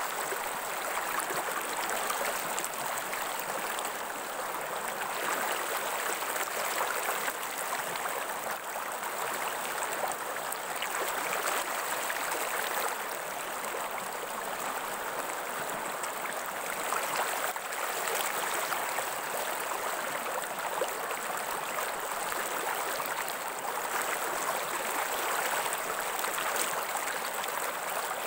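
Steady rush of water in a flowing stream, with no pauses.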